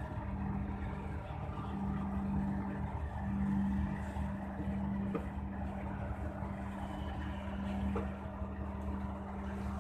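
Ship's engine machinery droning steadily: a constant low hum over a deeper rumble. A couple of faint knocks come about five and eight seconds in.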